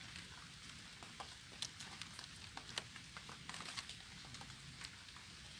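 Light rain falling, with scattered irregular drops pattering faintly on leaves.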